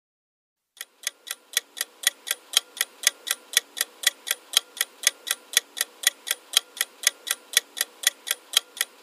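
Clock-like ticking sound effect of a quiz countdown timer, even ticks about four a second, starting about a second in.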